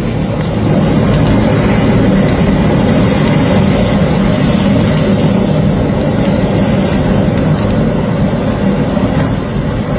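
Steady, loud roar of an electric car's battery fire, flames jetting from beneath a Dacia Spring.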